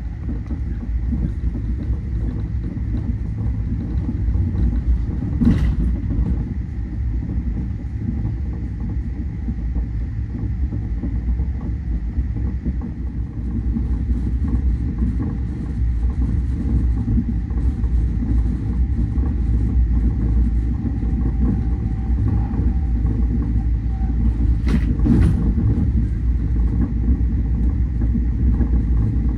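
Steady low rumble of a moving vehicle, with two short knocks, one about five seconds in and one near the end.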